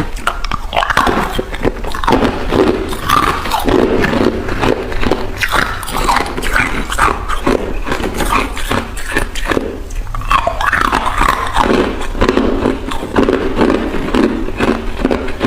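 A person biting and chewing ice: a dense, continuous run of sharp, brittle crunches.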